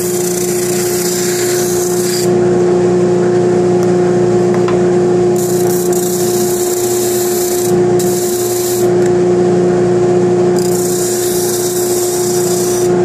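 Spindle sander running with a steady hum, as the edges of a 2x4 wood car cutout are pressed against the sanding drum in four stretches of gritty rasping, each a second or two long.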